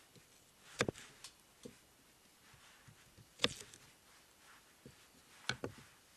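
Three sharp knocks a couple of seconds apart, with a few fainter clicks between them.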